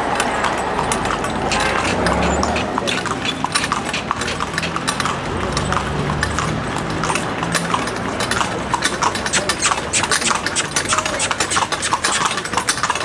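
Carriage horse's hooves clip-clopping at a trot on a paved street, a fast, busy run of sharp clops that grows denser after the first few seconds. A motor vehicle's engine hums low close by during the first half.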